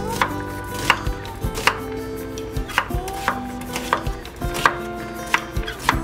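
Chef's knife slicing an onion on a wooden cutting board: a steady series of knocks as the blade cuts through and hits the board, about one every three-quarters of a second.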